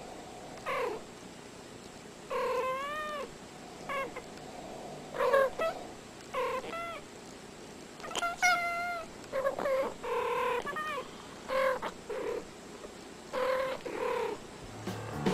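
House cats making a string of short meows and chirping trills, about a dozen calls with pauses between them. Some of the calls bend up and then down in pitch.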